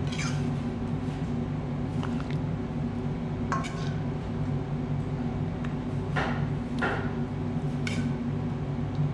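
A metal spoon clinking against a ceramic serving plate several times as food is spooned onto it, over a steady low hum.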